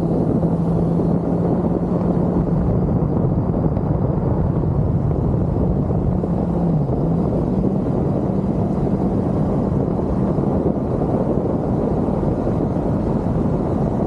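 Kawasaki Z900's inline-four engine running at steady revs on the move, mixed with wind rush. About seven seconds in the engine note dips briefly and comes back up.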